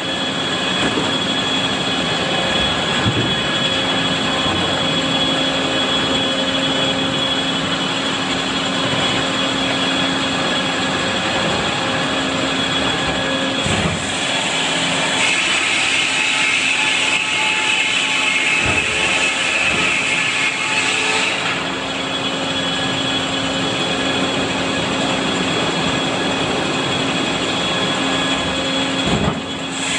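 Cooper short-log overhead sawmill running, its large circular saw blades spinning with a steady mechanical hum and whine. Midway a harsher, higher sawing sound rises for about six seconds as a log is cut, and a few dull knocks come from the machine.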